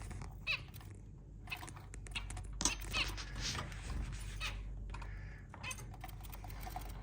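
Scattered light clicks and rustling from handling, with a few faint short chirps from zebra finches.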